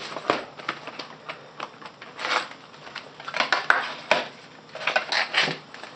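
Cardboard trading-card box and its plastic wrapping being handled: irregular clicks, taps and short rustles.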